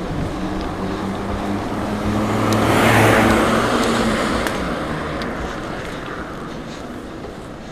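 A car passing by: its noise swells to a peak about three seconds in, then fades away slowly.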